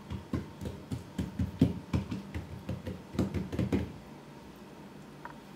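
Hands patting and smoothing oil and melted butter over a thin, stretched sheet of pie dough on a tabletop. A quick run of soft taps, about four a second, stops about four seconds in.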